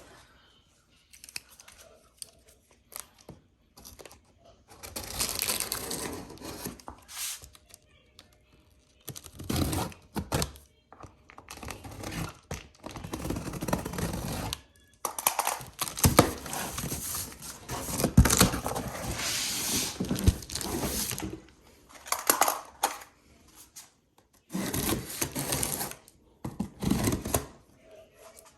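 A cardboard box being opened by hand and its packaging pulled out: repeated bursts of rustling and scraping with short pauses, and a few sharp knocks around the middle.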